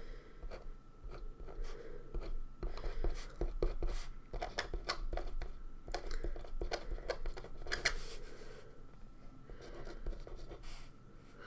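White pen writing on a sheet of black card: short scratchy strokes of the tip across the paper, coming in irregular bursts.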